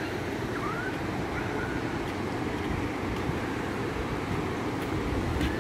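Moderate surf of the Gulf of Riga washing steadily onto a sandy beach, with wind buffeting the microphone. A few faint, distant high cries sound about a second in.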